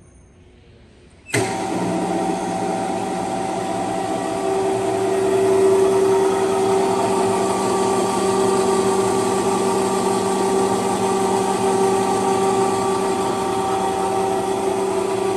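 Tilt drive of a Pandjiris Model 30-6 welding positioner running: its electric motor and gearing start suddenly about a second in and keep going steadily, a hum with a whine above it, as the pinion drives the large sector gear to tilt the table.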